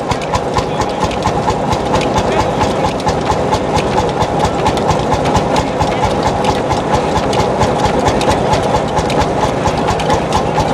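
Vintage tractor engine running with a steady, regular beat, driving a wooden threshing machine through a long flat belt, with the thresher's steady hum.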